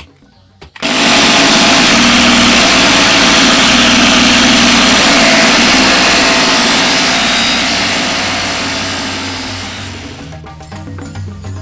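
A small disc on an electric motor's shaft grinding a wooden bolo scabbard: a loud, steady grinding noise that starts suddenly about a second in and dies away over the last few seconds.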